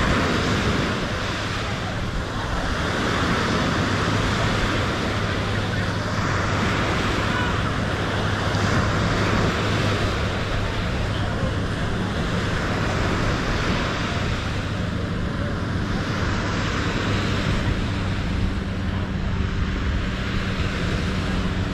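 Outdoor wash of wind and surf with faint voices, and a low engine drone through the middle.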